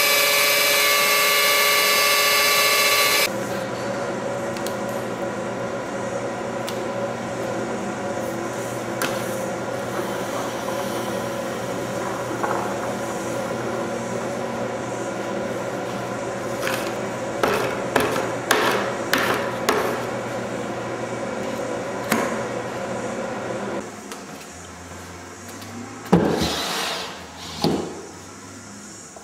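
Hand-held electric drill with a paddle mixer running for a few seconds, then cutting out abruptly. After it comes a steady hum with a run of sharp knocks and clunks, and near the end a few short swishes.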